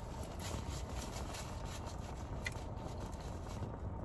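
Faint chewing and mouth sounds close to the microphone, a few soft clicks, over a steady low hum.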